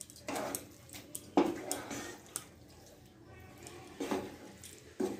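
Spatula scraping and turning raw chicken pieces through a thick, oily masala in a non-stick kadai: irregular scrapes and clacks against the pan, the loudest about one and a half seconds in.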